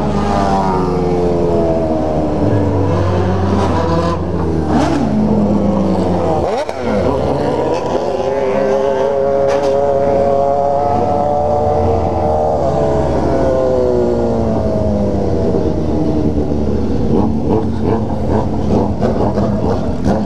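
Motorcycle engine heard from on board, revving up through the gears with its pitch climbing in steps, the clearest break about six and a half seconds in, then the revs falling away over the last several seconds as the bike slows.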